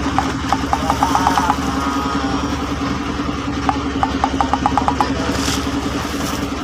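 Fishing boat's engine running steadily at idle, with two short runs of quick high ticks, one near the start and one around the middle.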